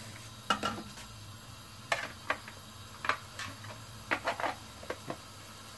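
Butter melting in a hot nonstick pot, spitting with scattered sharp pops and crackles, about a dozen in a few seconds, over a faint low hum.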